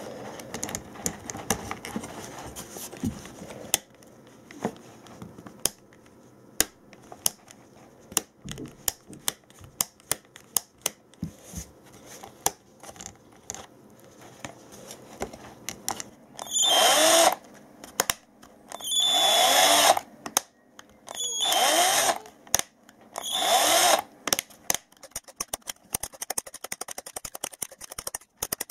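Sharp clicks and taps of plastic drill parts being handled and fitted, then a power tool's electric motor runs in four short bursts of about a second each, its pitch rising as it spins up and falling as it stops.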